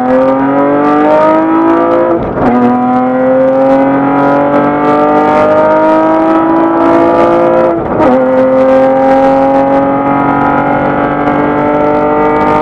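Acura TL's V6 engine at full throttle in a highway roll-on from about 40 mph to over 100 mph. The pitch climbs steadily through each gear and drops at two upshifts, about two and eight seconds in. Heard from inside the car's cabin.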